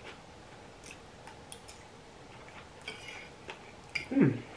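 Quiet eating sounds: chewing of ramen noodles and scattered light clicks of a metal fork against a plate. Near the end a short hummed 'mm' falls in pitch.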